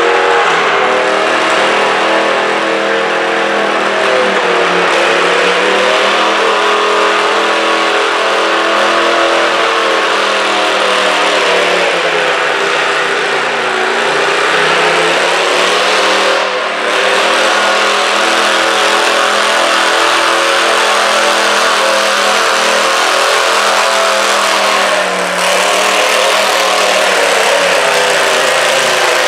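Stock altered garden tractor engine running hard under load as it drags a weighted stoneboat sled down the pulling track. Its note sags and climbs again several times as it labours, with two brief dips in loudness, one about halfway through and one a few seconds before the end.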